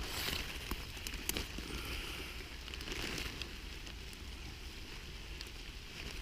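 Steady rain falling in the forest, with scattered short ticks of drops.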